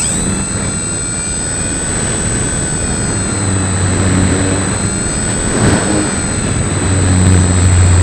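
Electric motor and propeller of a small foam RC plane running under power, heard from a camera mounted on the airframe: a steady high whine that comes in with a quick rise right at the start, over rushing wind noise on the microphone.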